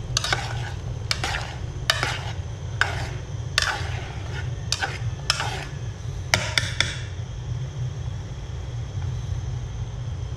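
Metal spoon scraping and clinking against the sides of a stainless steel pot as instant noodles are stirred in boiling water, about a dozen uneven strokes that stop about seven seconds in. A steady low rumble from the gas burner runs underneath.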